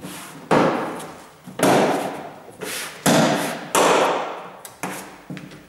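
Plastic inner trim panel of a VW Polo 6R tailgate being knocked into place by hand, clip by clip. It makes a series of loud thumps, four strong ones and a few lighter ones, each dying away quickly.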